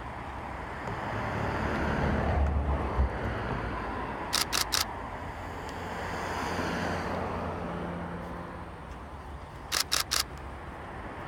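Two quick bursts of three camera-shutter clicks, about four seconds in and again near the end, over wind buffeting the microphone with a low rumble.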